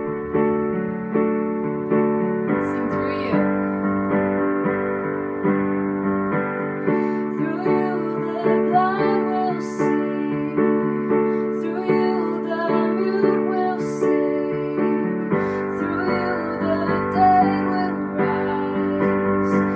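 Keyboard playing a slow worship-song introduction: sustained chords changing every second or two, with a deeper, fuller sound coming in about fifteen seconds in.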